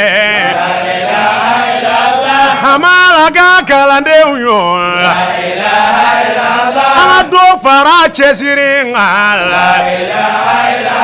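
Men's voices chanting an unaccompanied Islamic devotional chant, a lead voice drawing out long, wavering held notes.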